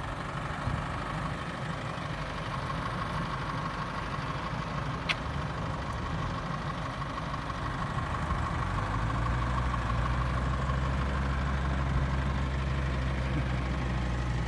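Pickup truck's engine idling steadily, a low hum that grows louder and steadier about eight seconds in, with one short click about five seconds in.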